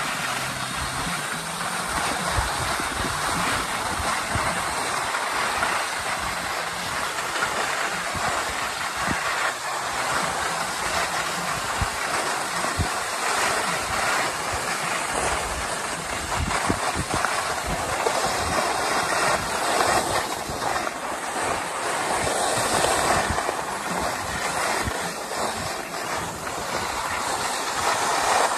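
Skis sliding downhill over packed snow: a steady scraping hiss with irregular clatter and low rumbling underneath, a little louder near the end.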